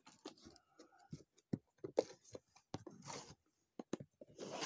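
Folding knife blade scraping and slicing along the sealed lid edge of a cardboard game box, with faint scattered clicks and taps of the box being handled. A couple of longer scraping strokes come about three seconds in and near the end.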